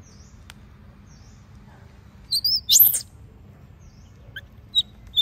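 High-pitched animal calls: a few short chirps, then one loud shrill squeal about halfway through, then more short chirps near the end, over a faint high call that repeats about once a second.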